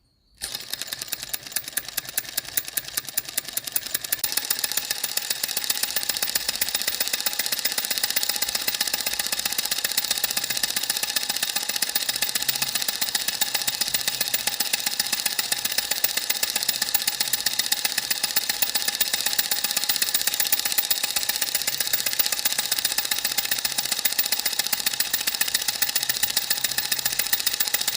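A machine starts up about half a second in and runs steadily with a fast, even mechanical clatter, getting louder about four seconds in and then holding.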